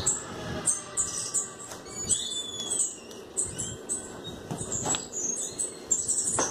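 Small birds chirping busily: many quick, high chirps and short pitch glides overlapping one another, with a couple of sharp clicks late on.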